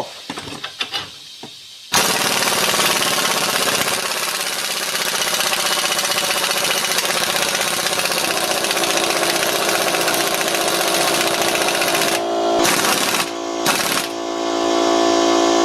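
Impact wrench hammering as it drives the screw of a ball joint press, forcing a rusty U-joint cap out. It starts suddenly about two seconds in, breaks off briefly twice near the end, then runs on with a steadier, more even tone.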